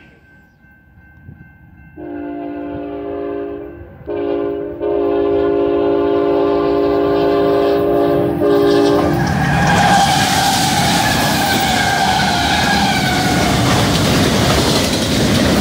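Union Pacific GE diesel locomotive's horn sounding a long blast, a short one and a long one, the end of the long-long-short-long grade-crossing signal. About nine seconds in, the lead locomotives pass close with a loud engine rumble and wheels on rail, and freight cars roll by with a steady clatter.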